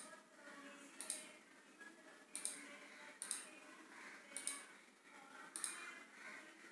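Faint, sharp clicks of a computer mouse and keyboard, about one a second, over low room noise.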